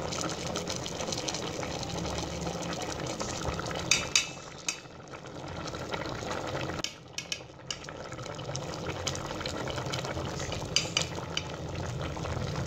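A pot of chana dal, chicken and water bubbling at a steady boil, with a few short metal clinks of a fork against the pot.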